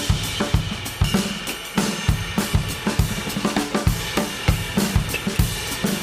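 Background music: a rock-style drum kit beat with kick, snare and cymbals keeping a steady rhythm.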